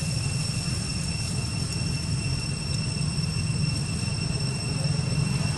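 Steady low rumble of a running engine, with a thin, steady high-pitched whine above it.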